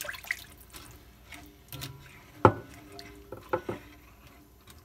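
Water pouring from a glass measuring cup and splashing into rice and broth in a cast-iron skillet. As the pan is stirred, a few sharp knocks follow, the loudest about halfway through.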